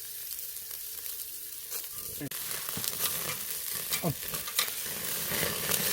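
Pork neck sizzling and crackling on a grill over a charcoal brazier, the fatty meat dripping onto the hot coals; the sizzle grows gradually louder.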